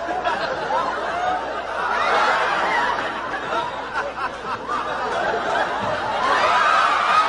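Audience laughing, many voices at once, swelling about two seconds in and again near the end.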